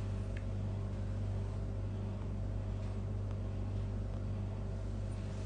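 Steady low machine hum with a faint hiss over it and a few faint ticks.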